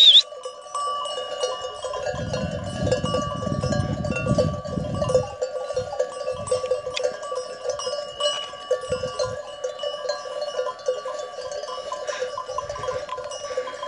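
Many bells on a grazing flock of sheep and goats ringing and clinking without pause, several pitches overlapping. A low rumble on the microphone runs for about three seconds, starting about two seconds in.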